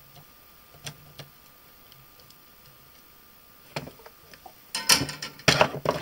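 A few light clicks, then a burst of clattering and knocking near the end as tools and a phone circuit board are handled on a workbench.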